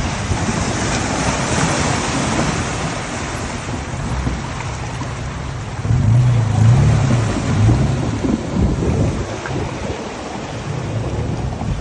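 Vehicles driving through floodwater on a road: a continuous rush and splash of water thrown up by the tyres, over a low engine rumble that grows louder about six seconds in.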